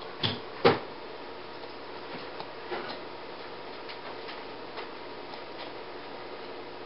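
Quiet room noise with two short knocks close together about half a second in, the second louder, then a few faint light taps.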